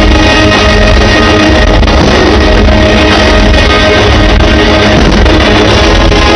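Loud rock-style music with guitar, playing continuously.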